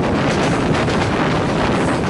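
A train running at speed: a steady rush of wind and running noise, with wind buffeting the microphone.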